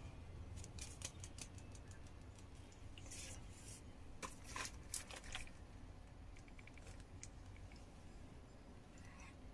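Faint handling noise: scattered rustles and small clicks of paper red envelopes and a cardboard chocolate box being handled, over a low steady room hum.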